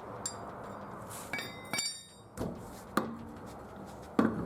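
A series of about half a dozen metallic clinks and knocks. Two near the middle ring briefly, and the loudest knock comes near the end.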